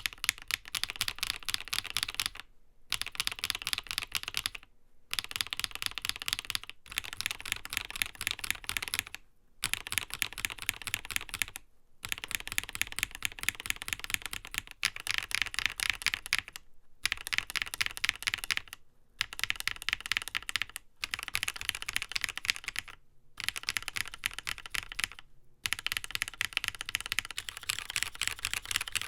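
Typing on a NovelKeys Classic TKL mechanical keyboard: fast runs of key clacks broken by short pauses about every two seconds.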